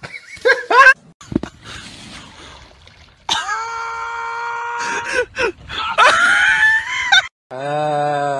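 Short comedy clips with voices yelling and screaming: a long held cry, then a wavering scream. A steady low pitched tone starts near the end.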